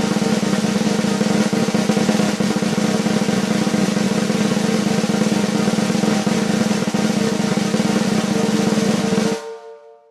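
Drum roll: a continuous rapid roll at even loudness that stops abruptly about nine seconds in, the drum ringing briefly as it dies away.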